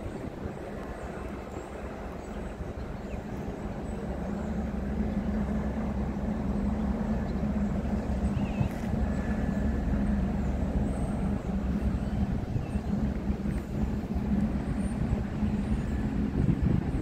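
Steady low engine hum and rumble of the passing lake freighter Captain Henry Jackman, an Algoma bulk carrier, growing louder over the first several seconds and then holding as its engine-room stern comes abreast.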